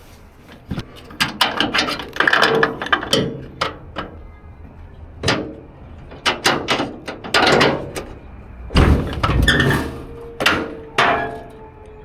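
Metal parts being unloaded from a pickup bed, clanking and knocking irregularly, with a few hits ringing briefly.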